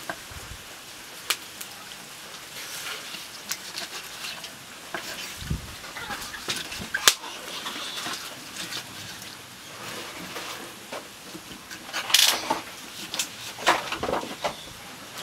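Kitchen knife slicing raw squid on a wooden chopping board: irregular knocks and clicks of the blade against the board, with a louder cluster of knocks about twelve seconds in.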